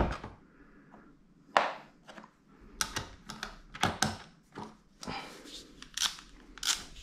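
Hand tools being picked up and handled: about a dozen sharp, irregular clicks and taps of metal on metal and hard surfaces, one alone about a second and a half in and the rest coming quickly after about three seconds.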